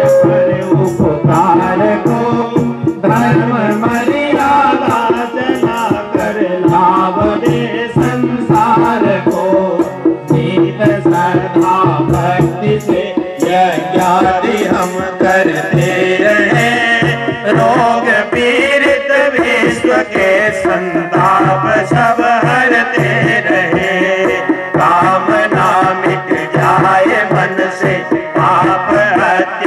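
Men singing a Hindu devotional hymn over a harmonium, with a hand drum and a quick, steady rattling percussion.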